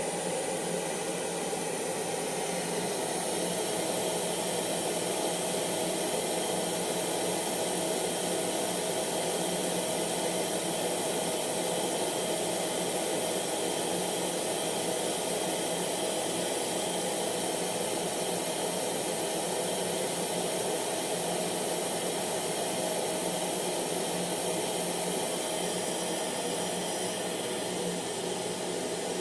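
Hair dryer running steadily: an even rushing blow of air with a faint steady motor hum.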